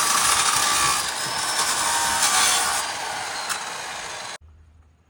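Tool work on bolts during a machine repair: a steady rasping, grinding noise that cuts off abruptly about four seconds in, followed by near silence.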